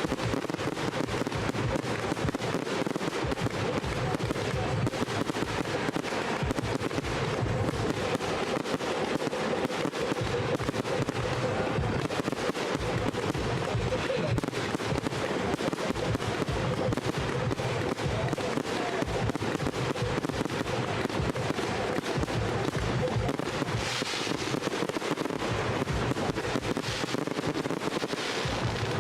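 Fireworks display: a dense, unbroken stream of crackling and popping bursts, with more crackle near the end.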